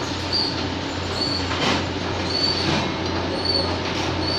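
Automatic capsule loader running while it drops empty hard capsules into a capsule plate: a steady motor hum, short high squeaks about once a second, and a scattered rattle of capsules.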